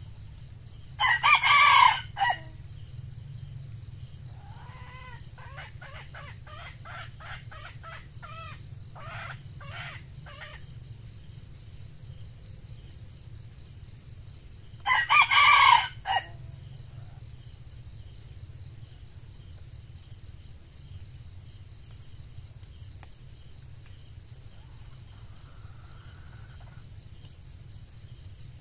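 Red junglefowl rooster crowing twice, about fourteen seconds apart. Between the crows comes a run of short clucking calls.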